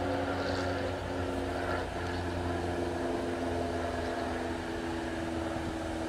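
Steady engine drone with a low hum underneath, holding a nearly constant pitch that shifts slightly about two seconds in.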